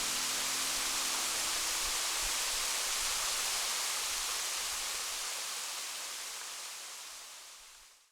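Waterfall of about 20 m drop rushing: a steady hiss of falling water that fades out over the last few seconds.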